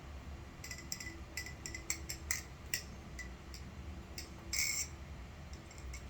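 Titanium butterfly knife (NRB SLight balisong) being flipped: quick, irregular clicks and clacks of the handles and blade swinging and striking each other, with a brief louder rattle about four and a half seconds in.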